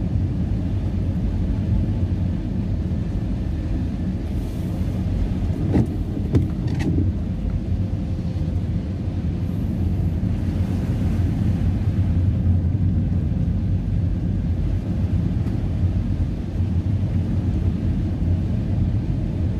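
Steady low rumble of a car driving on a wet road, heard from inside the cabin, with brief hisses of tyre spray twice and a few light clicks about six seconds in.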